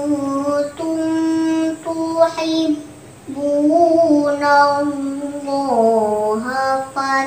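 A young girl's solo voice chanting the Quran in melodic tilawah style, in maqam bayati: long held notes that waver and slide between pitches, with a breath pause about three seconds in.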